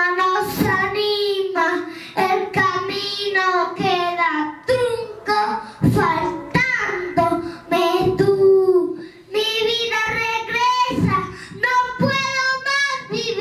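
A young boy singing into a handheld microphone, with long held notes.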